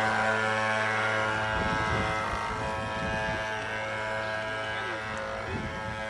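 Battery-powered electric motor of an RC model speed boat running at a steady high whine, growing slightly fainter as the boat pulls away across the water.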